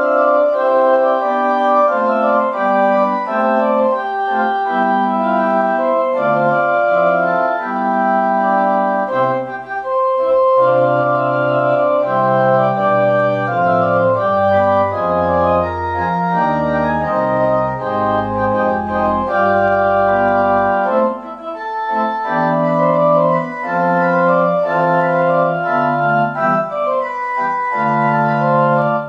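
Organ playing a closing voluntary: held chords over a moving bass line, with deep pedal notes coming in for about ten seconds in the middle.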